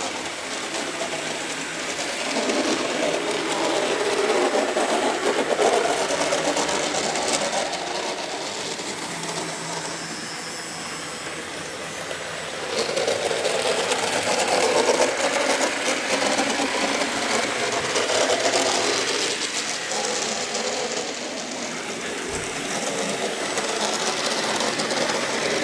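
Miniature electric trains running on a model railway layout: a steady whirring clatter of small motors and wheels on the rails. It swells twice as a train passes close.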